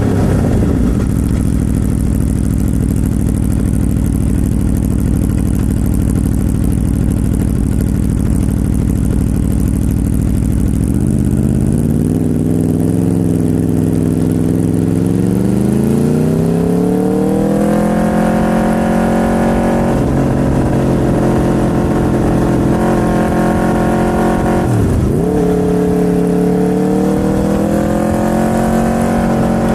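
Aprilia RSV4's V4 engine under way: running steadily at low revs, then pulling smoothly up through the revs over several seconds and holding a higher note. About 25 seconds in the revs drop sharply and come straight back up.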